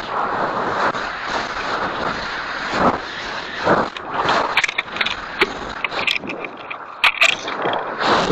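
Wind rushing over a high-power rocket's onboard camera as the rocket falls back toward the ground. In the second half the airframe rattles and clicks in irregular sharp knocks.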